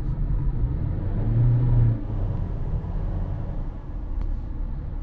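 Cabin noise inside a moving Honda HR-V: low road rumble and engine drone. A droning note swells about a second in, then eases off at about two seconds.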